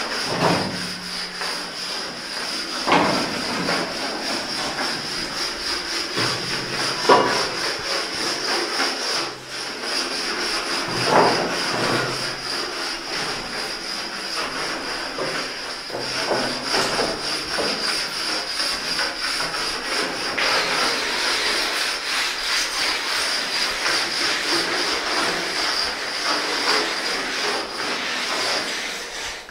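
Steady abrasive rubbing on a surface, with a few sharp knocks in the first dozen seconds.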